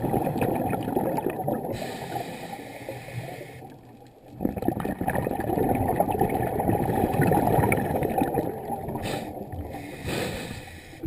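Muffled water sounds, gurgling and sloshing, dense and crackly. They drop away briefly about four seconds in, then return.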